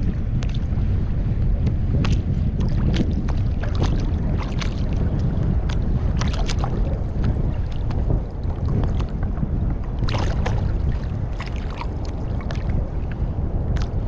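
Wind buffeting the microphone in a steady low rumble, with small waves slapping against a kayak's hull in irregular short splashes.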